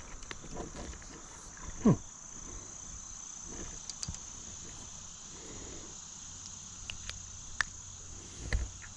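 Insects shrilling in one steady high note throughout. A brief loud falling swish comes about two seconds in, with scattered faint clicks and a low thump near the end.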